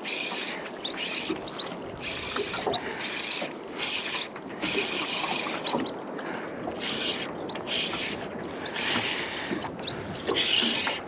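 Fishing reel cranked in short bursts, roughly one every second, as line is wound in against a bent rod with a fish on.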